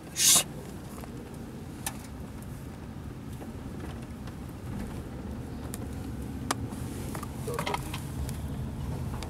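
Steady low rumble of a car on the move, with a brief loud burst of noise just after the start and a few faint clicks.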